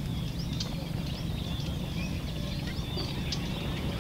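Small birds chirping and whistling in many short, quick calls over a steady low rumble.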